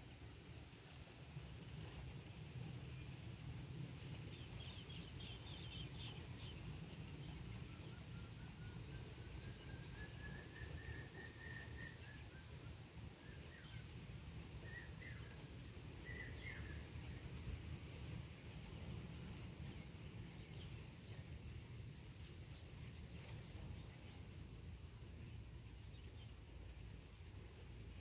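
Faint rural outdoor ambience: a low steady rumble, an insect trilling high and steady, and scattered short bird chirps, with one longer rising call about ten seconds in.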